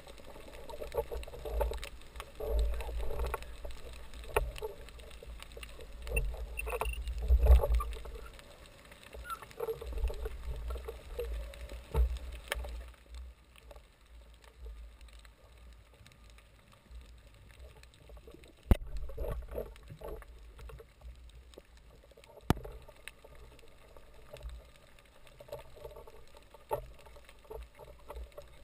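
Muffled underwater water movement and handling noise from a speargun-mounted camera in its waterproof housing, with low rumbling surges through the first half. It then goes quieter, with a few sharp clicks.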